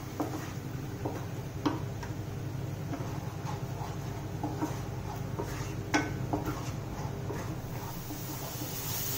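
Wooden spatula stirring thick onion-tomato masala in a non-stick kadhai, giving irregular light knocks and scrapes against the pan over a steady low hum, as the masala is fried until the oil separates.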